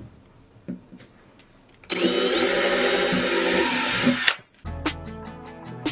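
Cordless DeWalt drill running for a little over two seconds as it bores a hole through the painted wooden bench top, with a steady high whine that rises slightly just after it starts. Background music with a beat comes in near the end.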